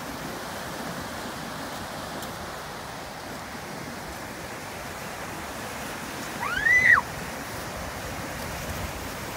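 Surf breaking and washing up a stony beach: a steady rush of waves. About six and a half seconds in, a short high-pitched call rises and then falls over it, louder than the surf.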